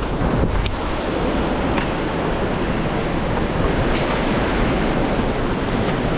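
River water rushing steadily below a spillway, with wind buffeting the microphone.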